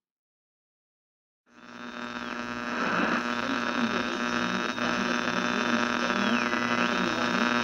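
Silence for about a second and a half, then a steady electronic hum with many overtones fades in and holds, with thin high tones sliding up and down over it: an outro sound bed.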